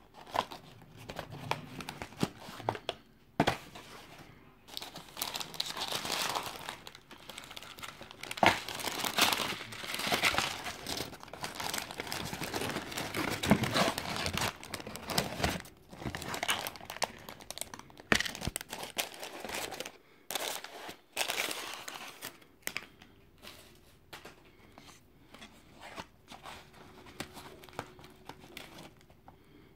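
Paper burger wrapper crinkling and rustling and a cardboard burger box being opened and handled, with irregular crackles and sharp clicks; the handling dies down over the last several seconds.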